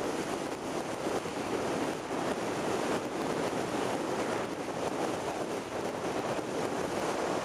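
Steady rush of wind over the microphone of a camera riding on a moving vehicle, with road noise mixed in.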